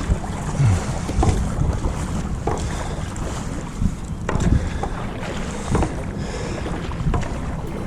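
Wind buffeting the microphone, with the splash of a stand-up paddleboard paddle dipping into the water in separate strokes every second or so.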